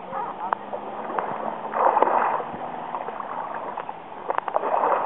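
Water splashing as a sea kayak capsizes, loudest about two seconds in, then sloshing and a second run of splashes near the end as the paddle sweeps through the water to roll the boat back upright.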